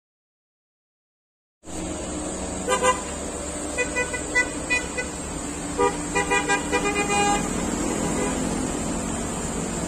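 Silent for the first second and a half, then a group of motorcycles riding past with their engines running, and repeated short horn toots that come in clusters of several quick beeps.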